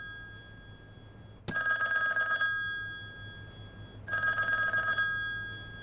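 Old telephone's electric bell ringing with an incoming call: two rings of about a second each, roughly two and a half seconds apart, each with a fast metallic rattle.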